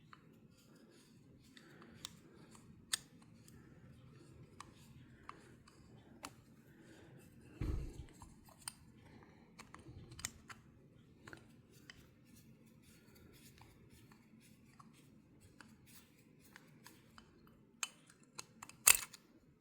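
Scattered small clicks and taps of metal parts and a screwdriver being handled while working a screw into an Abumatic 150 spincast reel, with a duller bump about eight seconds in and a few sharper clicks near the end.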